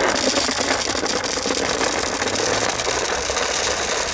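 Dry cat food pouring from a paper sack into a plastic tub: a continuous rattle of kibble hitting plastic, starting suddenly.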